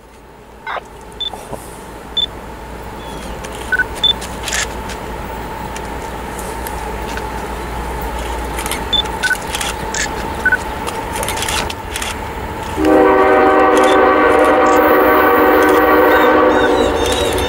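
Diesel freight locomotive approaching, a low rumble slowly growing louder. About thirteen seconds in, its air horn sounds one long blast of several steady tones, the loudest sound here.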